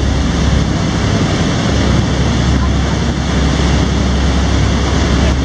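Tour boat under way: its engine running steadily with a deep drone, with water and wind rushing past over it.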